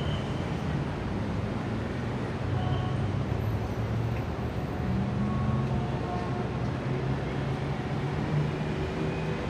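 Indian city street traffic: a steady mix of car, motorbike and auto-rickshaw engines running and passing, with an engine hum that swells and fades as vehicles go by.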